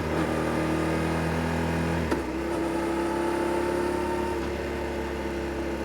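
Yamaha Tracer 7 GT's 689 cc parallel-twin engine coming off the throttle after a rev and running steadily at lower revs. About two seconds in a short click is heard, and the engine settles to a lower, steady note near idle.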